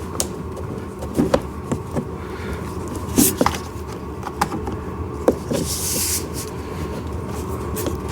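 Plastic ride-on car parts and wire connectors being handled and pushed into place: scattered light clicks and knocks with a brief rustle, over a steady low background hum.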